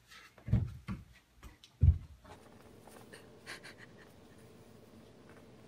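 Baby goats' small hooves thudding on wooden stair treads, two dull thumps about a second apart, followed by faint scratching and light ticking.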